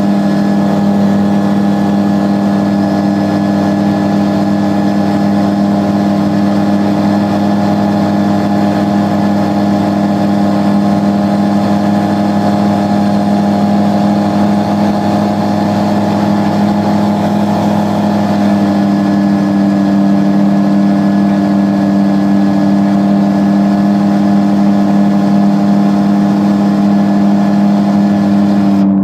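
Xenon 4 XL gyroplane's engine and pusher propeller heard from inside the cockpit, running with a steady, loud drone through the takeoff and climb-out.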